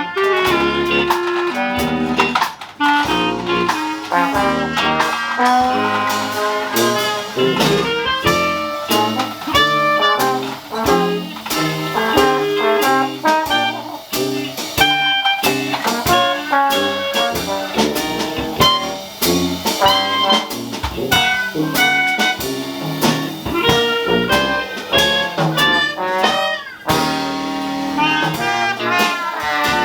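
Live Dixieland jazz band playing, with brass horns carrying busy melodic lines over a steady beat.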